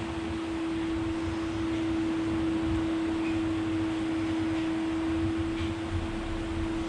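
Pedestal electric fan running: a steady airy hiss with an uneven low rumble, with one steady held tone over it.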